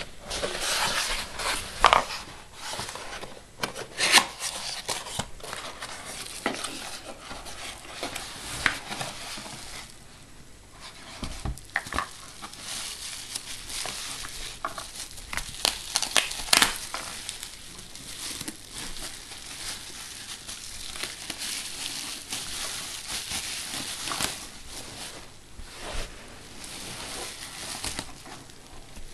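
Plastic packaging crinkling and rustling as items are unwrapped and handled by hand, with scattered sharp clicks and knocks, the loudest about two, four and sixteen seconds in.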